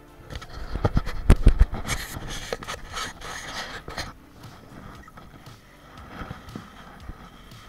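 Close-up handling noise from a camera worn by a person in a protective suit: a run of sharp knocks in the first two seconds as the ladder and the bagged hornet's nest are handled, then scraping and rubbing that dies down after about four seconds.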